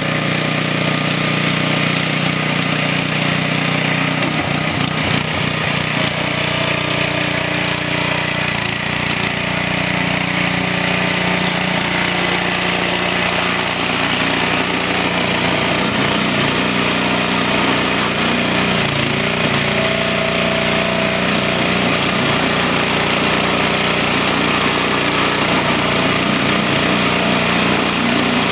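Heavy hail falling: a loud, dense, continuous rattle of hailstones striking hard surfaces.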